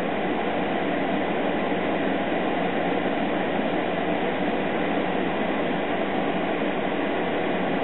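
Steady, even rushing noise like hiss or static, unbroken and unchanging throughout.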